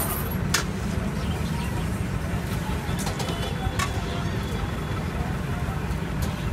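Samosas deep-frying in oil in a large iron kadhai, with a few sharp clinks of the metal slotted skimmer against the pan as they are turned and lifted, over a steady low rumble.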